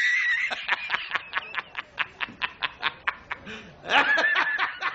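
A man laughing loudly. It opens on a high squeal, breaks into a fast run of short laughs at about five a second, and rises into another squeal about four seconds in.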